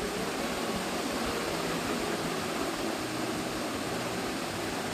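A steady, even hiss with a faint low hum underneath, with no distinct knocks or tool sounds.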